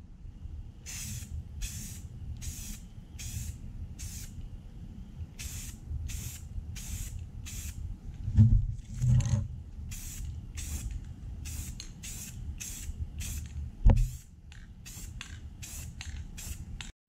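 Aerosol spray paint can hissing in many short bursts, about two a second, in runs with short pauses. Loud knocks come about halfway through and again near 14 seconds in, when the grinder is handled.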